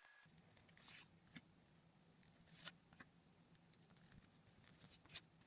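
Near silence with a few faint, sparse rustles and clicks of trading cards being handled, over a faint low hum.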